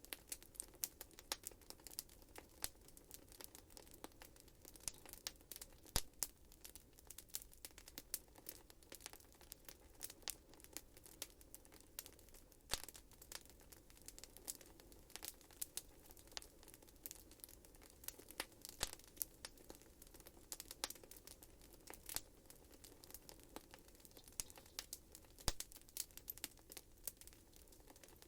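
Wood fire burning in a fireplace and crackling: a dense run of small, irregular snaps and pops, a few of them sharper, over a faint steady background hiss.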